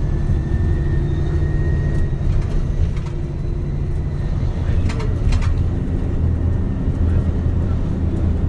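MAN Lion's City Hybrid city bus running, heard from on board: a steady low drone of the drivetrain, with a faint whine rising slowly in pitch in the first couple of seconds. A few short rattling clicks about five seconds in.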